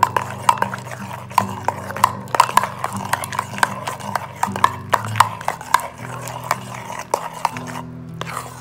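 Steel spoon beating thickening ghee and leftover ice pieces in a steel bowl, knocking and scraping against the bowl several times a second and stopping near the end, over a low steady hum. The ghee, chilled by the ice, is setting into butter.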